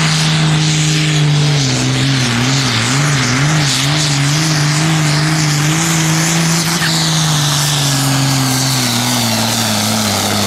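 Diesel engine of a 3.5-tonne sport-class pulling tractor running flat out under full load as it drags the weight sled. Its note wavers up and down for a couple of seconds about two seconds in, then slowly falls over the last few seconds as the load builds.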